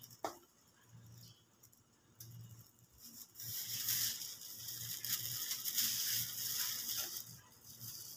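Crackly rustling of a plastic bag and the date bunch as dates are picked from a date palm and put into the bag, starting about three seconds in and running for about four seconds, with a brief sharp squeak just after the start.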